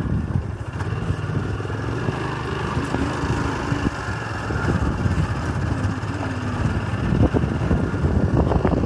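Motorcycle engine running at riding speed, its pitch wavering a little, with a run of short knocks and rattles near the end as the bike goes over a rough dirt track.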